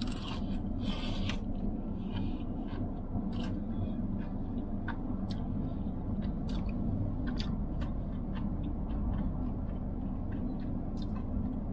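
Biting into and chewing a crispy fried chicken drumstick: crunches and crackles of the breaded skin, thickest in the first couple of seconds, then scattered clicks of chewing, over a steady low hum.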